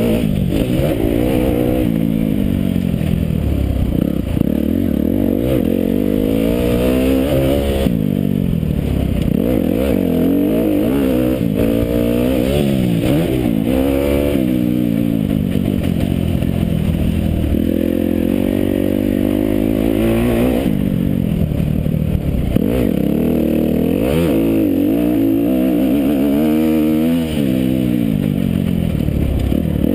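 Motocross bike's engine heard close up from a camera on the bike, revving hard and dropping back again and again as the rider accelerates, shifts and backs off around a dirt track.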